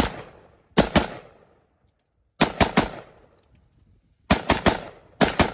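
Rapid semi-automatic gunfire from an AK-pattern rifle emptying a magazine: shots come in quick strings of two to four, with pauses of a second or so between strings, about a dozen shots in all.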